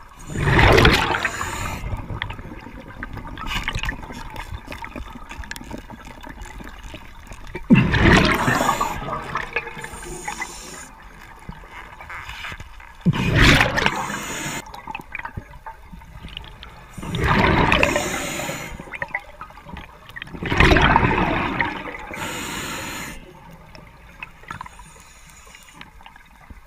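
A scuba diver's exhaled bubbles rushing out underwater, five loud surges several seconds apart, with a faint steady water hiss between them.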